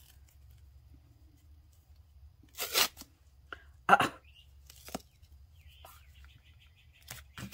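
Athletic tape being pulled off its roll and torn: a longer pull about two and a half seconds in, a short sharp tear at about four seconds (the loudest sound), and a few smaller crackles near the end.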